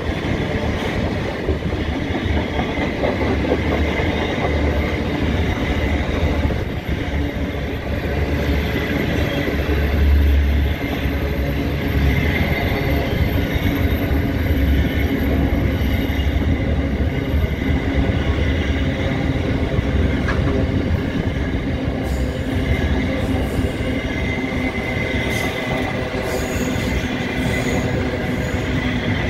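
Container freight wagons rolling past close by: a steady rumble and clatter of steel wheels on the rails, with a thin high wheel squeal that comes and goes.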